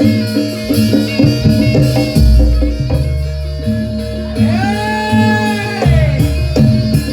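Loud music accompanying a barongan dance, with drums and melodic instruments. A heavy bass line comes in about two seconds in, and a long held note rises and falls near the middle.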